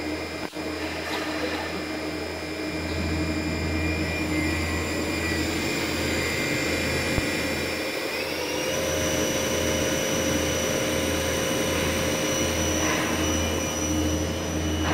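Quaser MV214P vertical machining center running, its spindle giving a steady whine over a low hum. About eight seconds in the whine steps up in pitch and holds there as the spindle speed rises.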